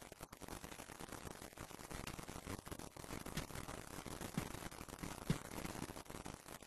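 Quiet, steady hiss with a low hum, broken by a few faint knocks, the loudest a little past five seconds in.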